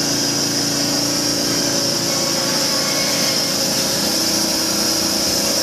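A motor-driven machine running steadily: a constant hum under a bright hiss that holds unchanged throughout.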